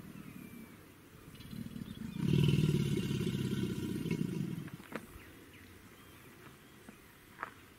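An alligator bellowing: one deep, rumbling call that swells about a second in, holds loud for around two and a half seconds, then fades out. A few short high chirps follow near the end.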